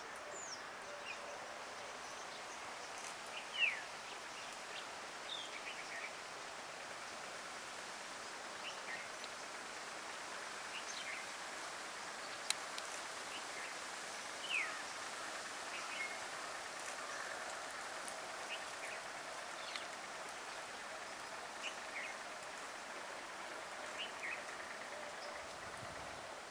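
Birds chirping and calling at intervals, short high chirps and quick downward-sweeping calls, over a steady outdoor hiss. The loudest call comes about three and a half seconds in, and a single sharp click sounds about halfway through.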